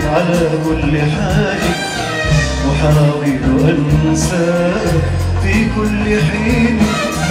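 Live Arabic tarab music: a male vocalist sings a melismatic line into a microphone over an ensemble of ouds, violins, keyboards and percussion, with a steady bass and beat.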